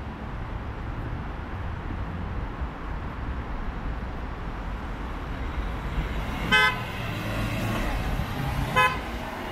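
Steady road-traffic noise, with a car horn giving two short toots, the first about six and a half seconds in and the second about two seconds later.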